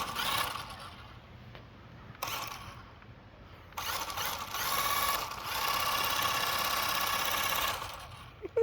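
Small electric drive motor of a toy RC car whining at high speed in bursts: a short burst at the start, another about two seconds in, then a long run of about four seconds that cuts off near the end.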